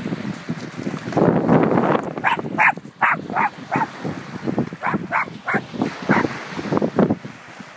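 Small dog barking excitedly in quick yaps, a run of about five and then about four more, over wind buffeting the microphone and small waves washing in.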